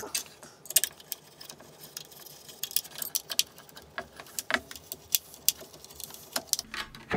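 Irregular light clicks and clinks of hand assembly: an aluminium extrusion being handled and adjusted against 3D-printed PLA mounting plates.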